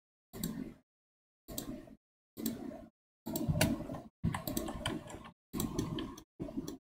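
Computer keyboard and mouse clicking in about seven short bursts, each cutting in and out sharply, with dead silence between.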